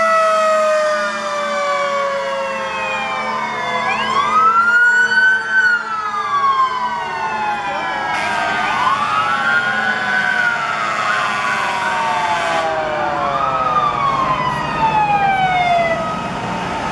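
Several fire truck sirens wail together, overlapping, as the trucks drive past. Each rises and then falls away slowly in a long sweep, three times, over the steady rumble of the trucks' engines.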